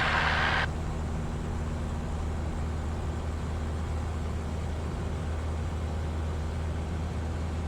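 Piper Cherokee's single piston engine and propeller running steadily at high power for a short-field takeoff from grass, heard from the cockpit as an even low drone. A burst of hiss cuts off under a second in.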